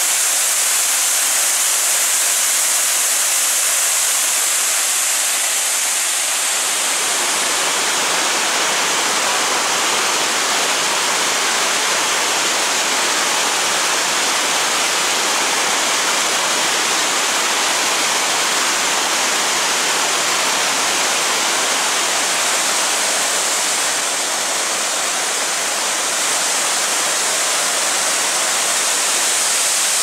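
Waterfall and fast-flowing river water rushing, a steady loud roar of white water. It is thin and hissy at first, then turns fuller and deeper about six seconds in.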